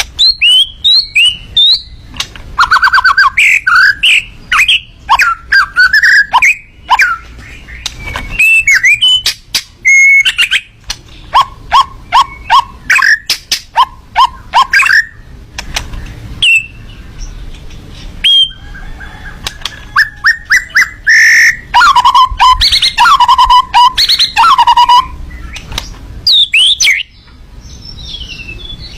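Miwah songbird singing a loud, varied song: rapid strings of clicking notes, fast repeated chips and sweeping whistles, in bursts with short pauses between them.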